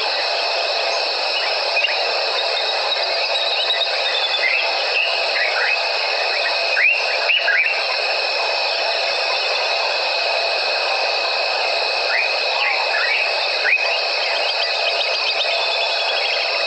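Evening wildlife chorus in the African bush: a steady high insect trilling, with short falling whistled calls every few seconds.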